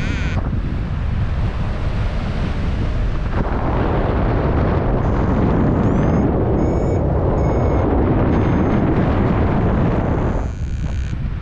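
Wind rushing over the microphone in paraglider flight, growing louder about a third of the way in and easing near the end. Partway through, an electronic flight variometer gives one rising tone, then a few short beeps.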